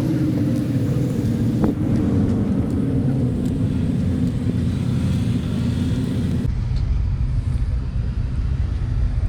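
Car engine running with road rumble, its pitch easing slightly lower over the first few seconds. About six and a half seconds in, the sound changes abruptly to a heavier, duller low rumble.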